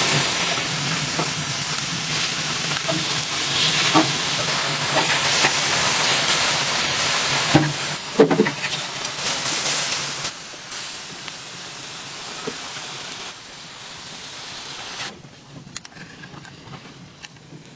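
Beef sizzling on a flat-top steel griddle, a dense steady hiss, with a few sharp metal clicks of a knife and tongs against the griddle about eight seconds in. The sizzle grows fainter in steps over the second half.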